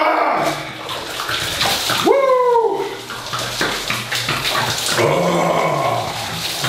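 Cold water pouring and splashing from a 20-litre narrow-necked bottle emptied over a man's shoulders and back. He lets out three long, loud yells at the cold: one at the start, one about two seconds in and one about five seconds in.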